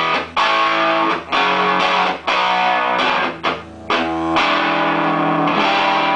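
Electric guitar played through a 1951 National Valco small tube amp: chords struck with short breaks between them, then a chord left to ring from about four seconds in.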